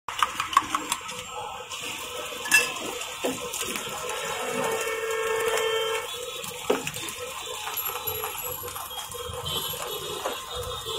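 Sharp metal clinks and taps of cooking utensils against a steel griddle, several in the first second and a few single ones later, over a steady hiss of eggs frying in oil on the hot flat-top plate.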